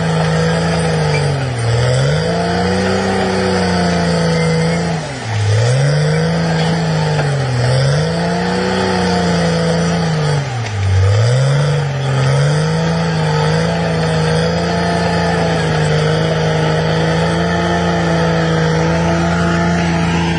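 An engine running, its pitch sagging sharply and recovering about four times in the first half, then holding steady.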